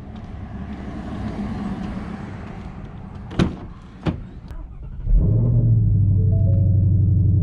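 Car running, with the noise of its motion rising for a few seconds, then two sharp clicks. About five seconds in, a loud, steady low drone starts suddenly.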